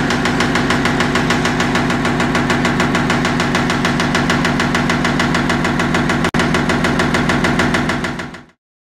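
VH-500 pneumatic railcar shaker clamped to a hopper car, vibrating the car body with a rapid, even knocking over a steady hum while bulk powder unloads. The sound breaks off for an instant about six seconds in and fades out near the end.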